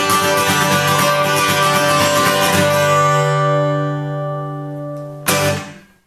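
Stonebridge acoustic guitar played fast to close the song, then a chord left to ring and fade. One last strummed chord comes about five seconds in and is cut short almost at once.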